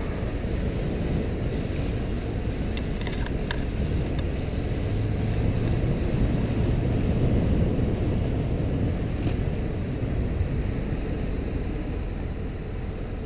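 BMW F650GS motorcycle engine running steadily under way, heard from a helmet-mounted camera. It grows a little louder around the middle and eases off near the end as the bike comes into a hairpin.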